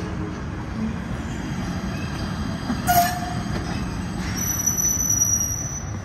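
PATH train rolling into the station with a steady rumble of wheels on rails. There is a short loud burst about three seconds in, and a high, steady wheel squeal during the last second and a half.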